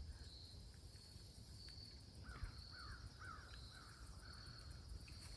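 Near silence outdoors: a short run of faint, quick bird chirps near the middle, over a faint high insect trill that comes and goes.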